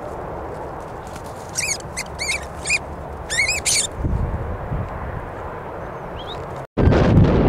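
About six short, high-pitched, wavering animal calls in quick succession, over steady wind noise on the microphone. The wind noise cuts out for a moment near the end, then comes back louder.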